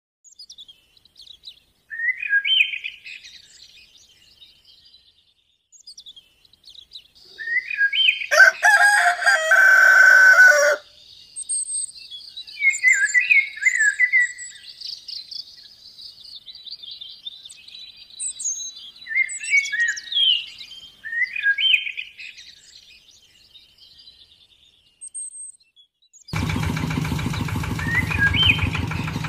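Small birds chirping, with a rooster crowing loudly about eight seconds in. Near the end a small motor starts and runs with a steady hum: the drive motor of a model walking tractor.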